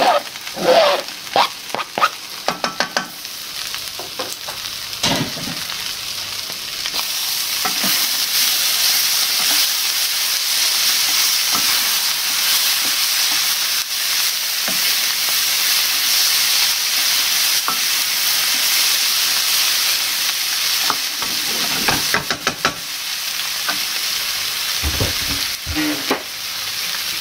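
Chopped tomato scraped off a chopping board into a hot frying pan with a wooden spoon, a few knocks and scrapes, then the spoon stirring a black bean and vegetable filling frying in olive oil. The sizzling grows louder about seven seconds in and holds steady, with the spoon scraping through it.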